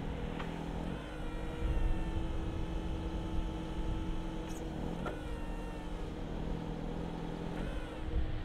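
Jungheinrich TFG 320s LPG forklift's engine running while its hydraulics are worked. The engine note changes about a second in as a hydraulic function is engaged, shifts briefly around halfway, and falls back near the end.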